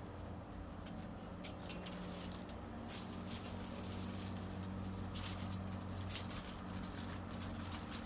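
Scattered light clicks and rustles of packaging being handled, over a steady low hum.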